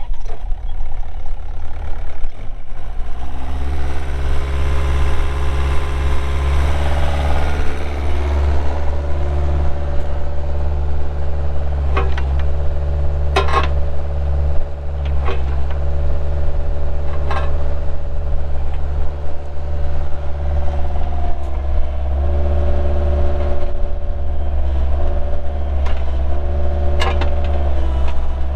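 Bobcat 430 mini excavator's Kubota diesel engine running, throttled up about two to three seconds in, its note shifting under hydraulic load as the machine works. Several sharp metallic knocks come over it.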